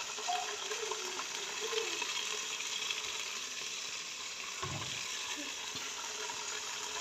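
Insects frying in a covered frying pan on a gas stove: a steady sizzle.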